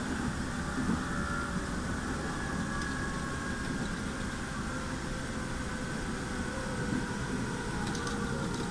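211-series electric train heard from the driver's cab while running: a steady low rumble of wheels and running gear with faint high whining tones. A few light clicks come near the end.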